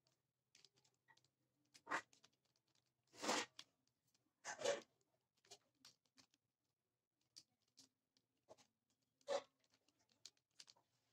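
Mirror cube's plastic layers being turned by hand: faint, scattered clicks and short rasping scrapes, with a few louder turns about two, three and a half, four and a half and nine seconds in.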